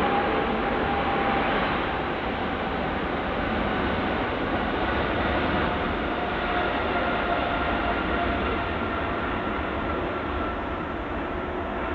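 Boeing 777-300ER's two GE90-115B turbofans at takeoff thrust during the takeoff roll: steady engine noise with faint whining tones that slowly drop in pitch as the jet passes.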